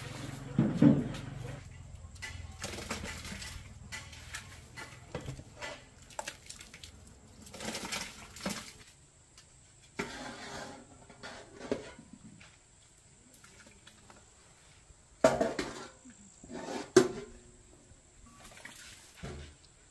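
A metal saucepan clanking and knocking against cookware while hot liquid is scooped and sloshed in a plastic barrel, in a string of irregular knocks and splashes. The sharpest knocks come about a second in and twice in quick succession about three quarters of the way through.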